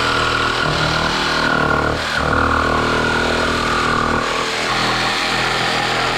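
Milwaukee cordless jigsaw running steadily as its blade cuts around the headlight opening of a motorcycle's plastic fairing, its tone dipping briefly about two seconds in.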